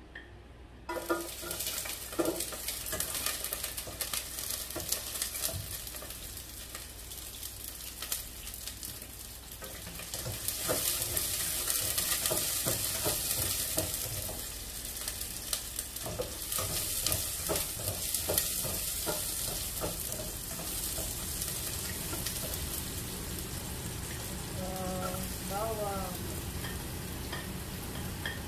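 Chopped onion frying in hot cooking oil, sizzling, with clicks and scrapes of a spatula stirring the pan. The sizzle starts suddenly about a second in and grows louder about a third of the way through.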